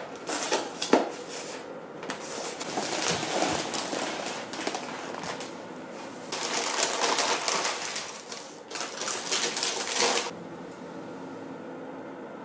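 Stiff paper cone lined with baking parchment being unrolled and peeled off cream puffs: paper rustling and crinkling in several bursts, stopping abruptly about ten seconds in.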